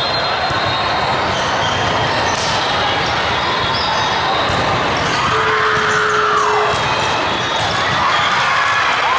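Indoor volleyball rally: the ball being played, with repeated sharp smacks of hands on the ball over the steady echoing din of a big hall full of other matches and spectators. A long rising-and-falling tone sounds about halfway through.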